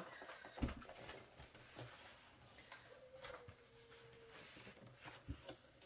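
Faint handling noises: a few light knocks and soft rustles of boxed planners and packaging being moved about.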